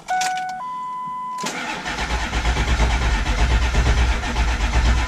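Dashboard chimes at key-on, then the starter cranking the 7.3 L V8 diesel steadily without it firing: the fuel system is full of air after running the tank dry.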